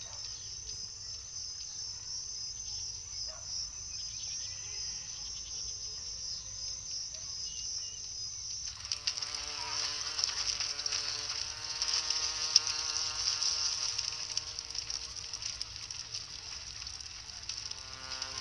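A steady, high-pitched chorus of insects throughout, louder from about halfway through. At that point a held, steady tone with several overtones joins underneath it.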